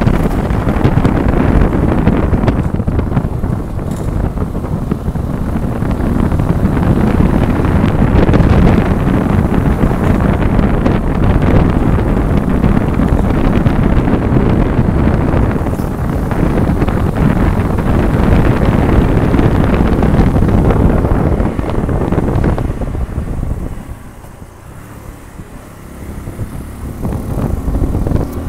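Wind rushing over the microphone of a moving motorcycle, with road and engine noise beneath it. It eases off briefly near the end, then rises again.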